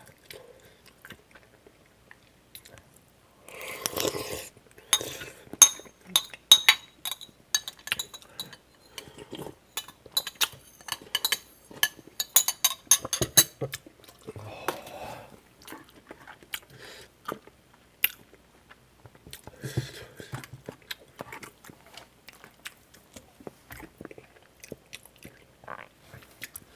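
Eating sounds at a meal of kimchi stew: cutlery clinking and scraping against a dish in a busy run of sharp clinks through the middle, with chewing. A few brief noisy swells come in between.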